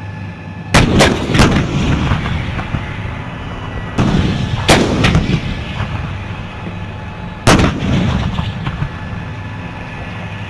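An M109A6 Paladin 155 mm self-propelled howitzer firing three rounds, about four and then three seconds apart. Each blast is followed by echoing cracks and a long rumble. Underneath runs the vehicle's engine, a steady hum.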